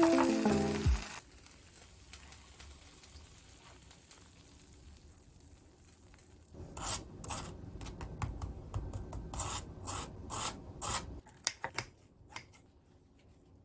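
A run of short scraping, rasping strokes, a little over two a second, from a utensil working through the crisp sweet potato and cheese pancake, ending with a few light ticks. Background music fades out at the very start, before a few quiet seconds.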